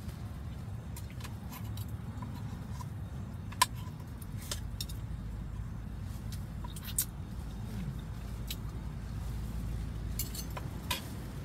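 Knife and fork clinking and scraping against a dish while steak is cut, a few sharp metallic clicks, the loudest about a third of the way in, over a steady low rumble.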